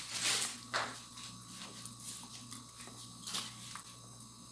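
A black Labrador chewing a treat, in a few short noisy crunches, the strongest in the first second and another a little past three seconds, over a steady electrical hum.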